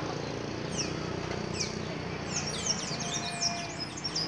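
Caged azulejo songbird singing: a few separate high, sharply falling notes, then from about halfway a quick run of repeated down-slurred chirps.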